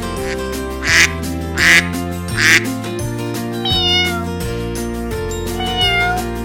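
A domestic cat meowing several times over steady background music: three short, louder meows in the first half, then two thinner, higher meows.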